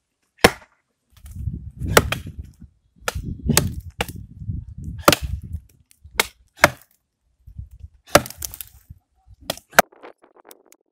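Axes chopping wood: about ten sharp, irregular strikes, twice coming in quick pairs.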